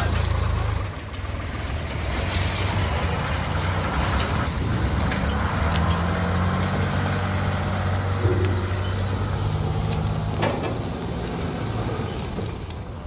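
Heavy diesel engine running, a steady low drone whose pitch shifts now and then, with a couple of sharp knocks.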